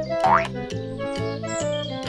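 Cheerful background music with a regular beat, and a quick upward-gliding sound effect about a quarter second in.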